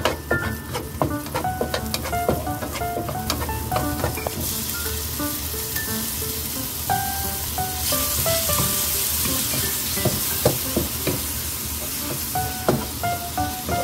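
Chopped green onions sizzling in oil in a nonstick frying pan, stirred with a spatula that scrapes and taps on the pan. Drained canned tuna is added and stir-fried with them, and the sizzle grows louder from about four seconds in.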